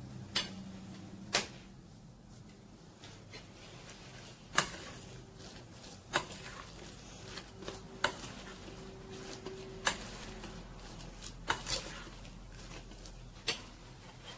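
Metal spoon clinking against a stainless steel mixing bowl every second or two, about eight sharp clinks, as minced meat filling is stirred.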